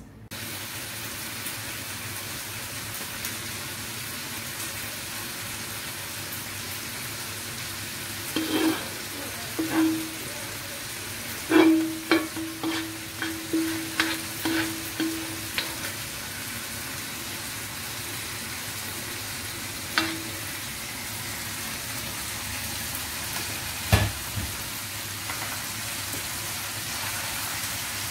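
A spatula scrapes and knocks against a wok as cooked laing is scooped out onto a plate, over a steady sizzling hiss. A run of knocks comes about a third of the way in, and one of them sets the wok ringing for a few seconds. Two more single knocks follow later.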